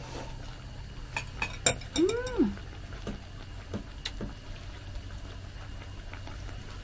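Eating sounds: chopsticks clicking a few times against a small metal bowl, then a short rising-and-falling "mm" hum about two seconds in.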